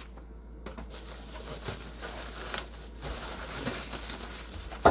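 Plastic wrapping rustling and crinkling as plastic-wrapped metal rack parts are handled in a cardboard box, with soft scattered clicks and one sharp knock at the very end.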